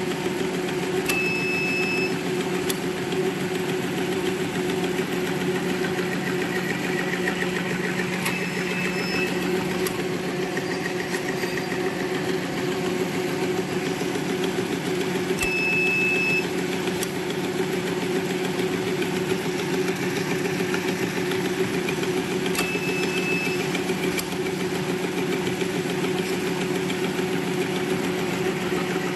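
Model 031 single straw packing machine running at speed, wrapping drinking straws in paper: a steady mechanical hum, with a click and a brief high tone about every seven seconds.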